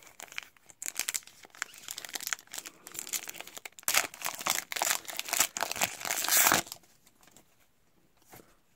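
Trading card pack wrapper crinkling and tearing as it is ripped open by hand. The crackling is loudest a few seconds in and stops well before the end.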